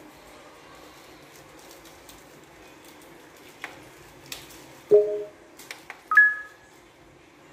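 Electronic menu beeps from a TV as its remote buttons are pressed on the auto-tuning prompt: a couple of faint clicks, then a short lower two-tone beep about five seconds in and a higher two-tone beep about a second later.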